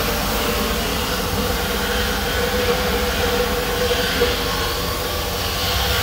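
Sand-blasting cabinet's electric dust-collector blower running steadily: a constant mid-pitched hum over rushing air.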